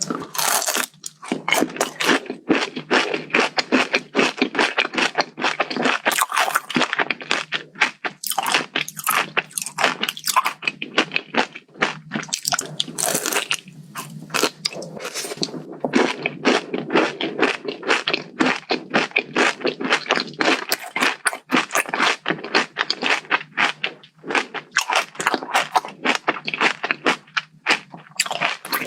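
Close-miked, continuous crunching and chewing of a Dubai-style chocolate bar filled with crisp toasted kataifi pastry and pistachio cream, dense crackly crunches with each bite and chew.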